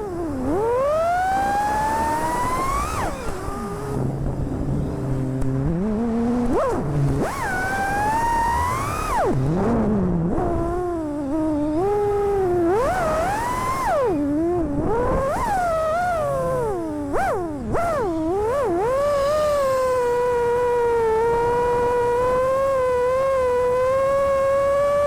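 FPV quadcopter's brushless motors and propellers whining, the pitch swooping up and down sharply as the throttle changes, then holding a steady, slightly wavering tone for the last several seconds.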